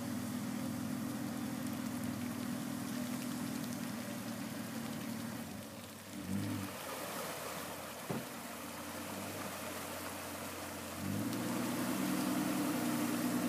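Toyota Land Cruiser FZJ80's inline-six engine running as it drives through a deep muddy water hole, revving up about six seconds in and again near the end, with water sloshing and splashing around the tyres. A single sharp knock about eight seconds in.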